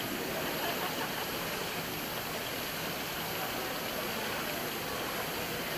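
Steady din of an indoor pool venue: a crowd's overlapping murmur blended into an even wash of noise, with no single voice standing out.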